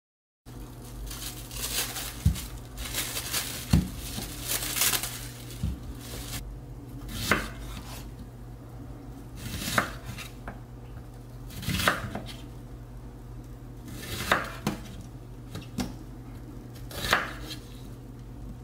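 A spoon scraping and knocking as cauliflower rice is spooned from a pan into a ceramic dish, then a chef's knife cutting through an onion onto a wooden board, one crisp cut about every two seconds.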